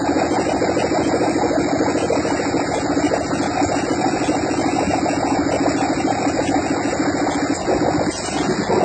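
Modified three-cylinder engine running steadily, with a brief drop in level near the end before it picks up again.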